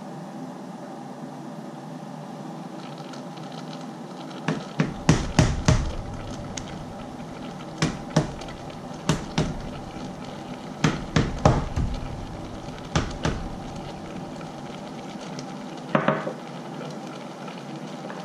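Food being chopped on a cutting board: irregular runs of sharp knocks with dull thuds, a few strokes at a time with pauses between. A steady hum runs underneath.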